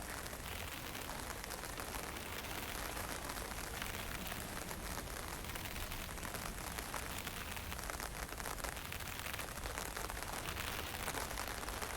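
Wind and fine drizzle: a steady, even hiss with a low rumble of wind and a light patter of drops.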